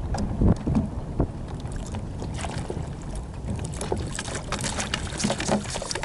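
Gear being handled aboard a kayak: a run of knocks, thumps and rustles against the hull, heaviest about a second in, over water sounds and wind on the microphone.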